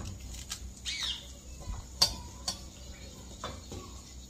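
A knife cutting through scallion stalks held in the hand, giving a few short, sharp clicks, the loudest about two seconds in.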